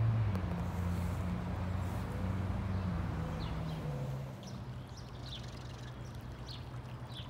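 Outdoor ambience: a low engine drone that slowly drops in pitch and fades, with short high bird chirps in the second half.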